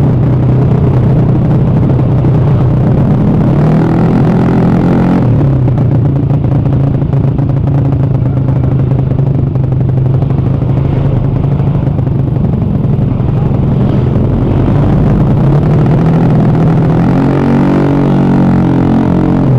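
Carburetted Honda BeAT scooter's rebuilt single-cylinder four-stroke engine running steadily, revving up briefly about four seconds in and again near the end.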